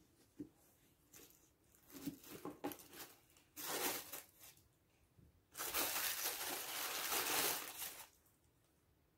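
Paper crinkling and tearing as a gift is unwrapped: a few light rustles, a short burst about three and a half seconds in, then a longer stretch of continuous crinkling from about five and a half to eight seconds.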